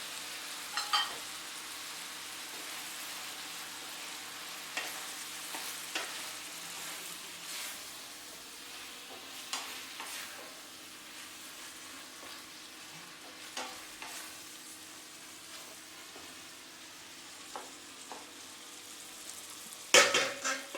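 Minced beef frying with freshly added chopped tomatoes and bell peppers, a steady sizzle, while a spoon scrapes and knocks against the pot every few seconds. A short burst of louder clatter comes near the end.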